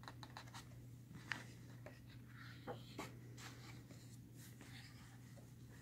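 Faint handling noise: scattered soft clicks and a few scratchy rustles over a steady low hum.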